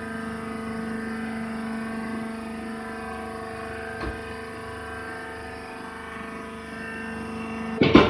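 Hydraulic rice husk baler's motor and pump running with a steady hum, with a single light tap about four seconds in and a sudden loud clatter right at the end.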